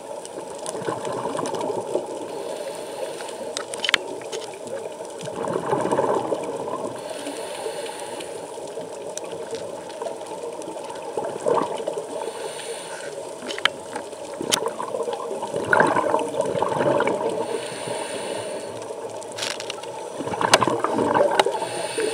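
Underwater, scuba regulator exhaust bubbles gurgling in bursts every several seconds, the divers breathing out, with a few sharp clicks.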